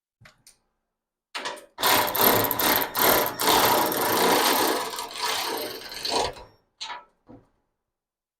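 An M8 bolt being tightened with a hand or power tool: a rapid, loud mechanical rattle lasting about five seconds, starting a couple of seconds in, followed by a few light knocks.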